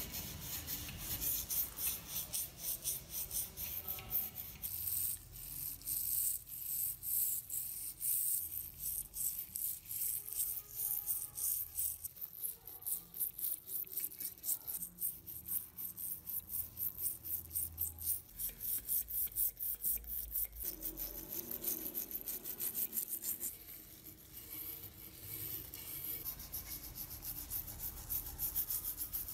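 A stiff-bristled hand brush scrubbing the wet, rusty cast-iron body of an antique meat grinder in quick back-and-forth strokes, a fast scratching rhythm of several strokes a second.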